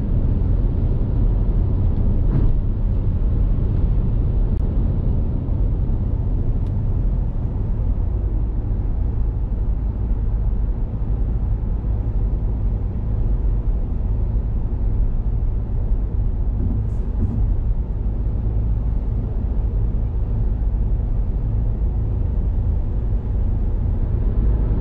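Steady road and engine noise of a car driving at speed, heard from inside the cabin: an even low rumble that holds without change.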